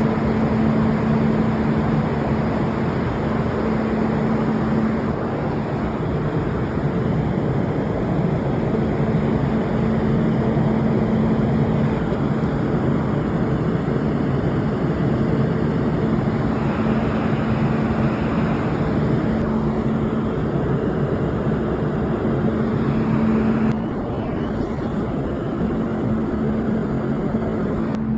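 A 3500 kW RLC load bank running under full load, its cooling fans giving a dense, steady rush of air with a constant low hum. The level drops a little about three-quarters of the way through.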